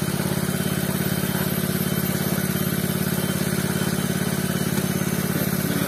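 Small Robin engine running steadily at a constant speed, its even firing pulses unchanged throughout.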